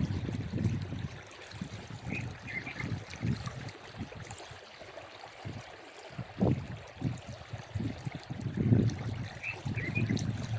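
Water running and trickling, over irregular low rumbling swells, with two brief clusters of short high chirps, one about two seconds in and one near the end.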